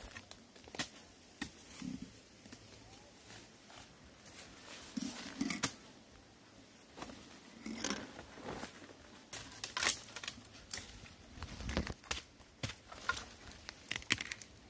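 Dry bamboo leaves and twigs rustling and crackling, irregularly, as someone moves and works through a bamboo thicket, with a few sharper snaps.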